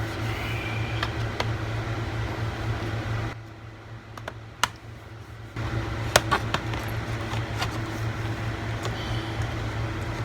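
Scattered sharp plastic clicks as a thin pry tool works around the laptop's bottom panel and pops its retaining clips, the loudest a little past halfway, over a steady low hum that drops away for about two seconds a third of the way in.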